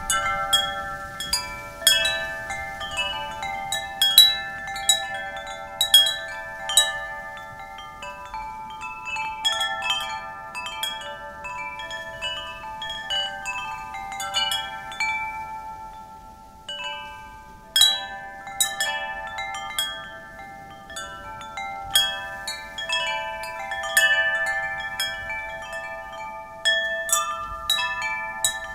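Wind chimes struck by the wind, ringing in irregular clusters of overlapping tones. The strikes thin out to a brief lull a little past halfway, then start up again.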